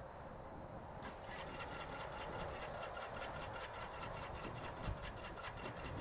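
Bullit Bluroc motorcycle engine idling, with a steady rhythmic ticking of about six or seven beats a second setting in about a second in.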